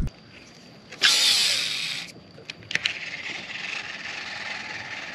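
Fishing line whizzing off a casting reel's spinning spool for about a second as a lure is cast, followed by two sharp clicks and then a steady, fainter hiss.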